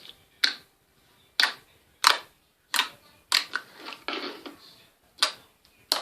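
Cloud slime squeezed and pressed in the hands, giving about eight sharp clicks and pops at irregular intervals, with a softer squishing stretch a little past the middle.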